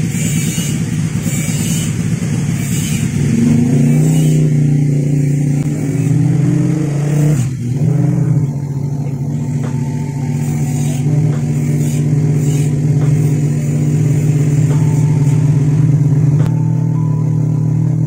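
A motorcycle engine running steadily, its pitch stepping up a few seconds in and dropping briefly near the middle.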